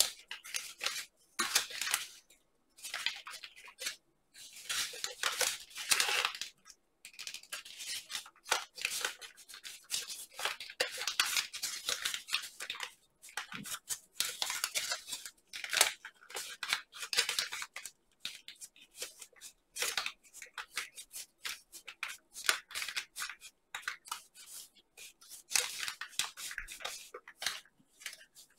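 A sheet of origami paper rustling and crinkling as fingers fold and crease it, in irregular bursts with short pauses between them.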